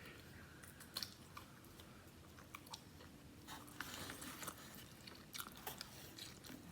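A person chewing a mouthful of burrito bowl close to the microphone, soft and faint, with scattered short mouth clicks and smacks.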